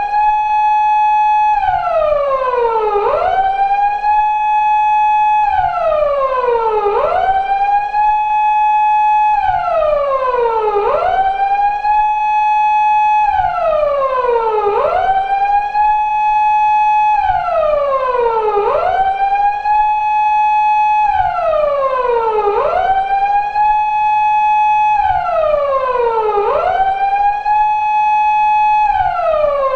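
Japanese police car siren of the 2000s type used on Toyota Crown 170- and 180-series patrol cars, wailing in a four-second cycle. Each cycle rises quickly, holds a high note for about a second and a half, then slides slowly down before rising again; about seven cycles.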